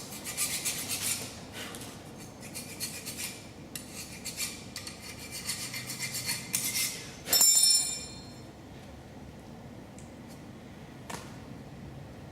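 Metal tools and brake parts clinking and scraping as they are handled. A sharp, ringing metallic clank comes about seven and a half seconds in, then a single click near the end.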